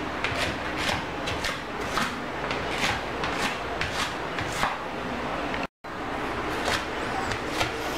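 Large kitchen knife chopping onion on a plastic cutting board: a steady run of knocks, about two to three a second, that breaks off for an instant near the end.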